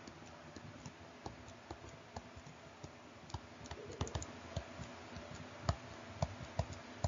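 Faint, irregular light taps and clicks of a stylus on a tablet screen during handwriting, over a low steady hum.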